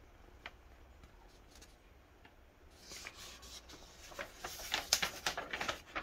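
A large fold-out paper instruction manual is handled and turned to its next page. A few soft ticks come first, then crinkling and rustling paper from about halfway in, loudest near the end.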